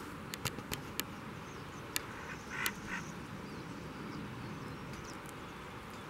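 Outdoor background hiss with a few sharp clicks, and two short, harsh animal calls about two and a half seconds in.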